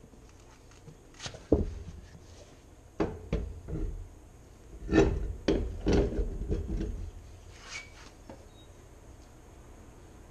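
Knocks, thuds and scraping as a mower wheel, tyre on its rim, is handled and pushed onto the hub studs: a cluster of knocks about 1.5, 3 and 5 s in, with a rubbing scrape around 5 to 7 s, then it goes quieter.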